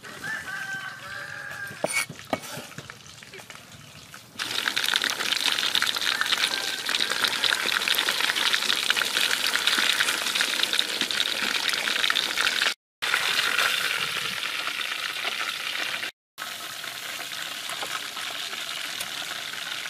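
Whole tilapia deep-frying in hot oil: a dense, steady crackling sizzle that starts suddenly about four seconds in. It drops out for an instant twice.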